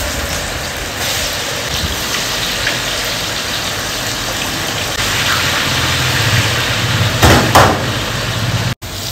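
Marinated chicken pieces deep-frying in a wok of hot oil: a loud, steady sizzle over a low rumble from the gas burner beneath. A couple of louder knocks near the end.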